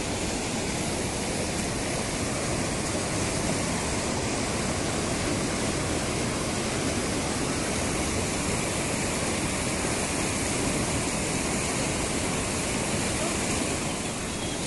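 Steady rush of fast-flowing mountain stream water, an even roar that holds at one level throughout.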